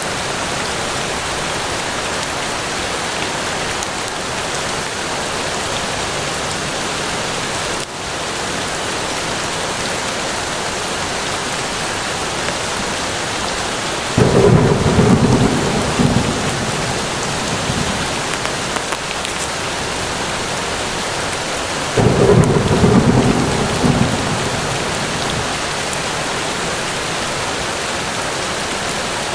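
Steady heavy rain falling. Thunder rumbles in twice, each roll starting suddenly and lasting two or three seconds, about halfway through and again near three-quarters through.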